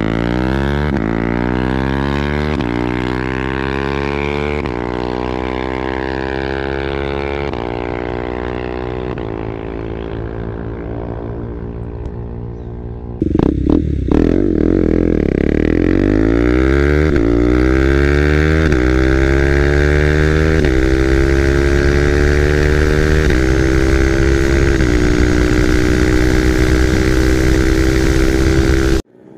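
KTM 390 Duke's single-cylinder engine through an SC Project full-system exhaust, accelerating hard through the gears: the note rises in each gear and drops at every upshift. At first the bike pulls away and fades. About halfway through the sound is suddenly close, heard from on the bike, climbing through more upshifts to a steady high-speed run, and it cuts off near the end.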